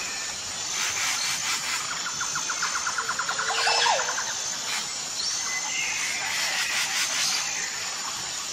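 Outdoor nature ambience: a steady hiss with birds chirping now and then, and a quick rattling trill of about ten notes a second around the middle that ends in a short falling call.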